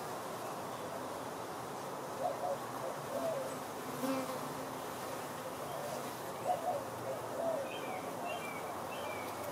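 Honeybees flying in and out at the hive, several passing close one after another, each a short buzz that swells and fades as it goes by.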